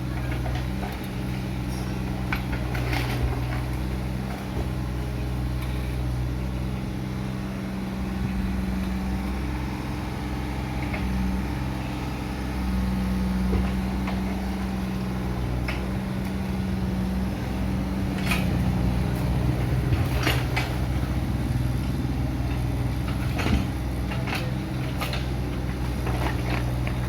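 Excavator diesel engine running steadily, its pitch shifting slightly from time to time as the machine works, with several short knocks and clanks scattered through, mostly in the second half.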